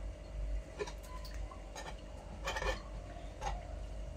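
A metal fork raking through steamed vermicelli in a terracotta dish to separate the strands, with a few light scattered clicks and scrapes as it touches the dish.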